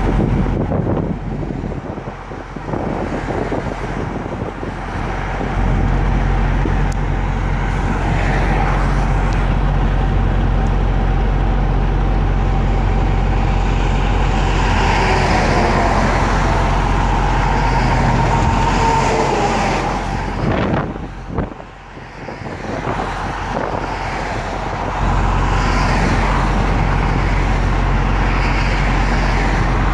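Freeway traffic noise: a steady road rumble with trucks and cars passing close by, dipping briefly about two-thirds of the way through.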